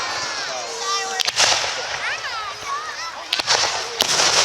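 Aerial fireworks display: wavering whistles gliding up and down in pitch, cut by sharp cracks of bursting shells about a second in and again near the end.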